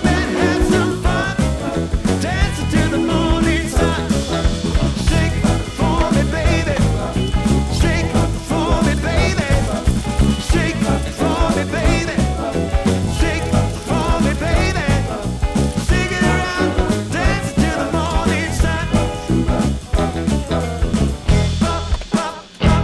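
Background music, an upbeat swing/ska-style track with a steady beat and some singing.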